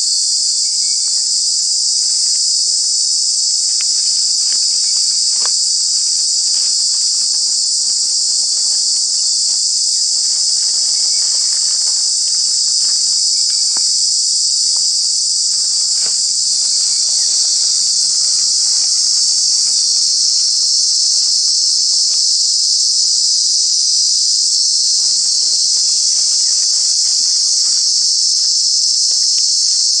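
Cicada singing: a loud, steady, high-pitched buzz that runs on without a break.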